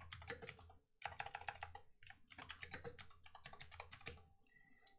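Faint, fast typing on a computer keyboard: a quick run of key clicks with short pauses about one and two seconds in.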